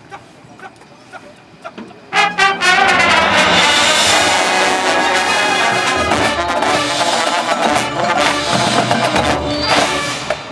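High school marching band music: after a quiet first two seconds, the full band comes in suddenly and loud about two seconds in, brass to the fore over the drums, and plays on.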